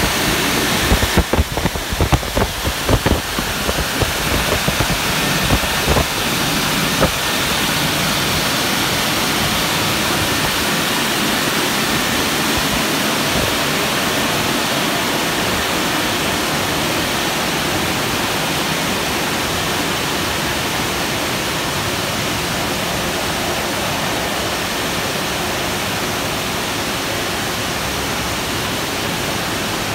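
Aquarama Stargate S4 rollover car wash running over a car: a steady loud rushing noise, with irregular knocks and slaps during the first seven seconds or so.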